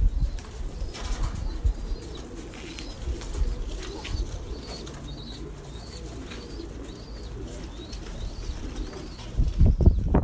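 Birds calling: a run of short, high, arched chirps through the middle, over low rumbling noise that is loudest at the start and again just before the end.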